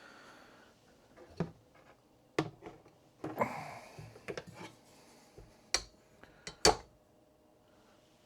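Motorcycle exhaust parts being handled: a series of separate knocks and clunks with a short stretch of rustling, the loudest clunk near the end.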